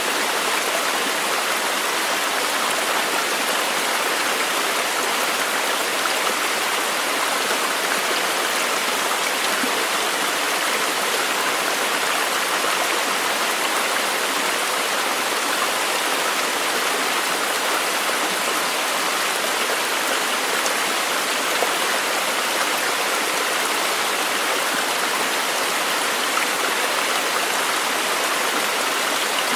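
Steady rush of flowing water, an even hiss with no breaks or distinct splashes.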